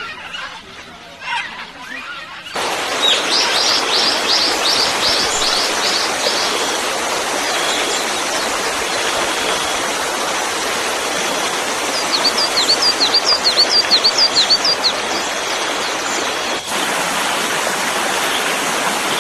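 Waterfall: a steady rush of falling water that starts suddenly about two and a half seconds in. Over it a bird sings two quick runs of repeated high chirps, one early and one about two thirds of the way through.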